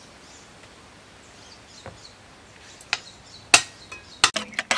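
A metal fork clinks and knocks against an aluminium pot as ripe tamarind is mashed in hot water: a handful of sharp clinks in the last two seconds. Faint bird chirps come before them.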